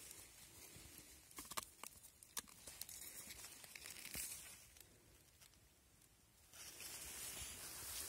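Faint tearing and crackling of a mushroom's flesh being broken apart by hand and cut with a folding knife, with a few small sharp clicks. A soft, even rustle comes in near the end.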